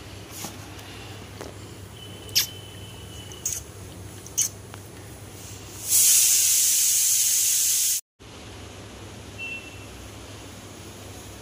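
Cat lapping from a bowl, heard as a few soft clicks over a steady low hum. About six seconds in, a loud steady hiss runs for two seconds and cuts off abruptly.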